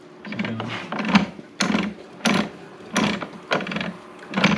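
Gear stacks on the input shaft and countershaft of a Honda Civic Type R six-speed manual transmission being turned by hand, the gear teeth and synchro parts clicking and clattering in a string of short bursts about one to two a second. The shafts are being turned to check whether one of them is bent.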